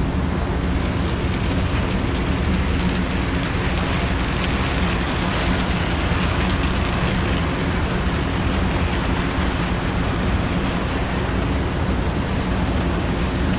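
HO scale B&O diesel passenger train (Life-Like Proto E8/E7 model locomotive pulling passenger cars) running past on the layout track: a steady rumble of metal wheels on the rails with a low motor hum, swelling around the middle as the locomotive goes by.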